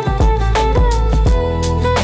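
Instrumental chillhop with a steady beat: sustained melodic notes over a deep bass, with regular drum hits.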